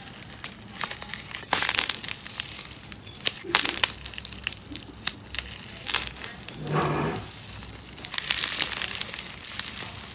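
Hands squeezing and tearing apart thick, foam-textured crunchy slime, giving repeated bursts of crackling and crinkling, some short and some lasting about a second.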